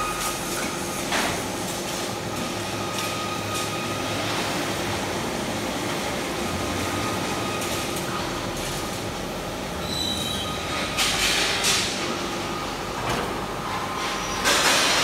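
Rebar cut-and-bend production line running: a steady machine hum with thin whining tones, and steel bars clattering on the roller conveyors. The loudest clatters come about a second in, twice around eleven to twelve seconds, and near the end.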